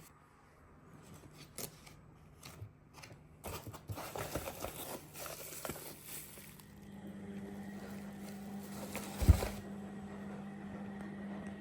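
Unboxing handling of packaging: a few scattered clicks, then a few seconds of crinkling, tearing and scraping of wrapping. A low steady hum comes in about halfway through, with a single loud thump near the end.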